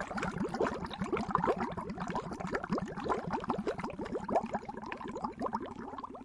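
Water bubbling: a dense, continuous stream of small bubble blips in quick succession, each gliding slightly up in pitch.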